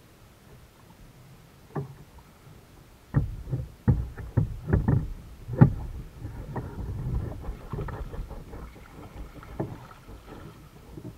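A cluster of sharp knocks and thumps on a plastic sit-on-top kayak as the paddle and gear are handled against the hull, then a stretch of paddling and water sloshing against the boat.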